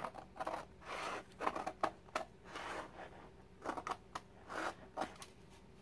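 Scissors snipping through a sheet of fabric in a series of short, unevenly spaced cuts, trimming it to size.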